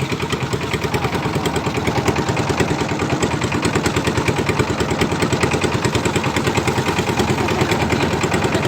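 A boat's engine running steadily under way, with a fast, even chugging beat.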